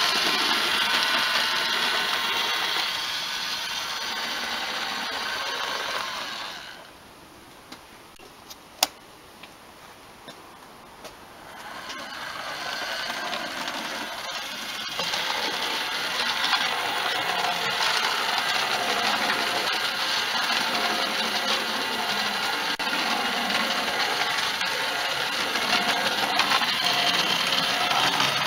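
A toy Thomas the Tank Engine model locomotive running along garden railway track, its small electric motor whirring steadily. About seven seconds in the sound drops away for roughly five seconds, with one sharp click, then the running resumes.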